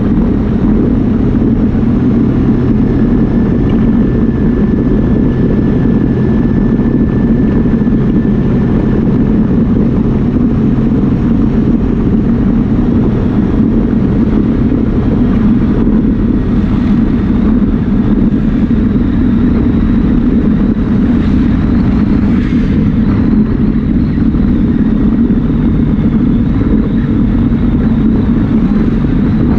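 Yamaha Viking side-by-side's single-cylinder engine running steadily while driving.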